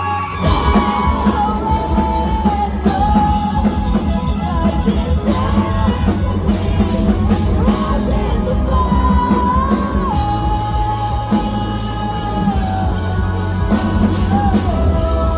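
Live rock band playing at full volume, with sung and yelled vocals over electric guitars, bass and a drum kit; the full band comes in right at the start after a guitar-only passage.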